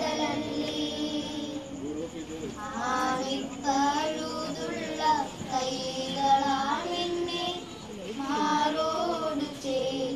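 High voices singing a devotional hymn, the melody moving in phrases over a steady low note held beneath.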